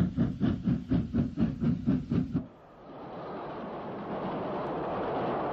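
Steam locomotive working hard, with rapid, regular exhaust chuffs about four or five a second. The chuffing cuts off suddenly about two and a half seconds in, and a steady hiss follows.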